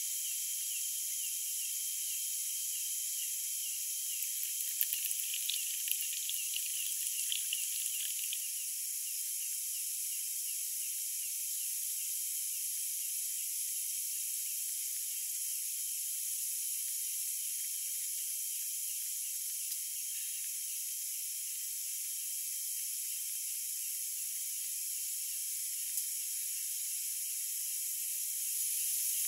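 Night insect chorus of crickets and katydids: a steady, high, pulsing trill in several bands. A few light clicks and taps come through about five to eight seconds in.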